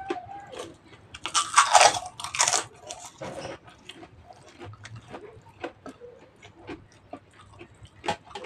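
Close-up mouth sounds of a person chewing karedok, a raw vegetable salad, with rice: wet clicks and smacks throughout, and two loud crunches between about one and a half and two and a half seconds in.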